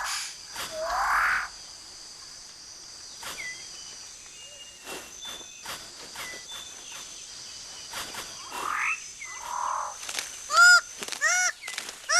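Forest animal calls: rising whistled calls in the first second and a half and again around nine seconds, scattered clicks, then a loud series of short repeated calls, about two a second, near the end.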